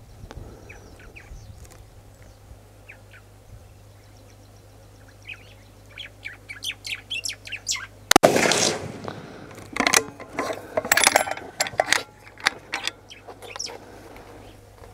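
Birds chirping, then about eight seconds in a single shot from a Bergara B14 HMR Wilderness rifle in .300 PRC fitted with a muzzle brake: one sharp crack with a short ringing tail. Metallic clicks follow over the next few seconds as the bolt is worked.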